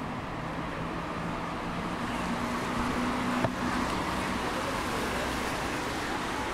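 City street traffic noise, with a motor vehicle's engine hum heard from about a second in until past the middle. A single sharp click comes about halfway through.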